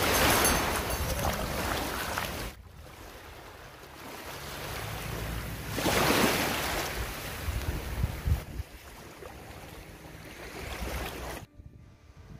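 Wind buffeting the microphone over small waves washing onto a sandy shore, in two loud gusty swells, one at the start and one about six seconds in. The sound drops away suddenly near the end.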